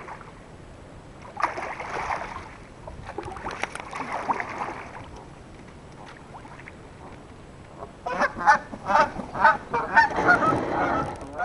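A pair of Canada geese honking in a rapid run of loud, short calls starting about eight seconds in, agitated by a kayak approaching their nest site. Before that, two soft swishes of a kayak paddle in the water.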